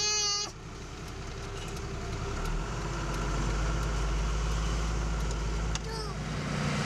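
Vehicle engine running while driving, heard from inside the cab, its low hum growing a little louder partway through. A steady horn-like note cuts off about half a second in.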